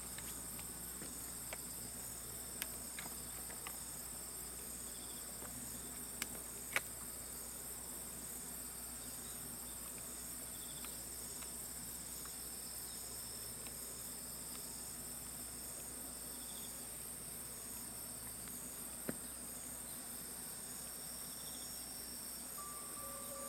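Steady, high-pitched chorus of insects, with a few faint clicks scattered through it, the sharpest about seven seconds in.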